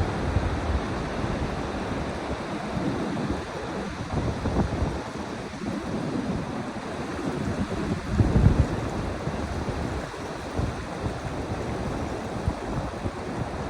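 Ocean surf washing on a beach in a steady hiss, with wind gusting against the microphone in low rumbles, strongest about eight seconds in.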